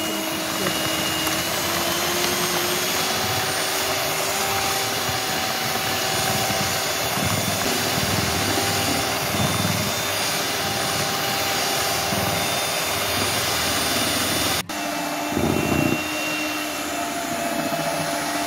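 Electric hand mixer running steadily, its beaters whipping eggs, sugar and ovalet emulsifier into a sponge-cake batter. The motor's hum rises slightly in pitch about a second in, then holds. It cuts out for an instant about fifteen seconds in and resumes.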